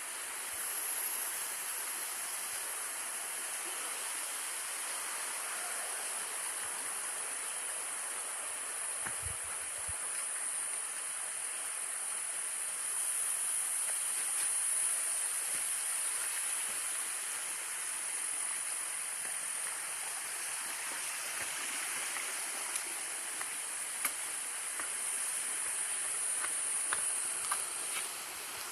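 Falling water of a waterfall of about 30 metres, a steady, even rush of noise.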